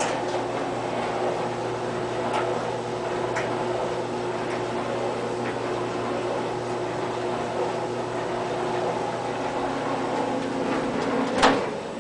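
GE gas clothes dryer running with a load of clothes just after being started: a steady motor hum with the drum turning and a few faint knocks. Near the end there is a clunk and the hum cuts off.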